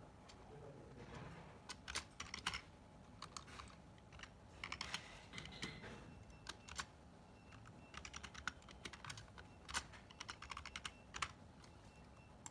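Typing on a computer keyboard: faint, irregular keystroke clicks in short runs with pauses between them.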